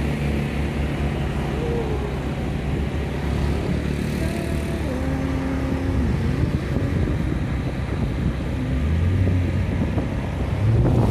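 Steady engine and road noise of a moving motor vehicle, heard from on board.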